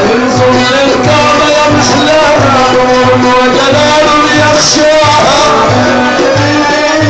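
Loud Middle Eastern band music with a steady, evenly repeating low drum beat under a melody line.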